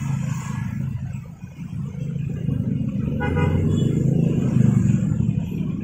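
Motorcycles and cars driving past at close range, engines running and getting louder, with a short horn toot about three seconds in.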